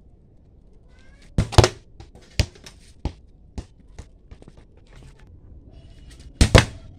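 A football hitting a standing plastic water bottle on concrete and knocking it away: two sharp knocks about a second and a half in, then a few lighter knocks over the next two seconds, and another pair of sharp knocks near the end.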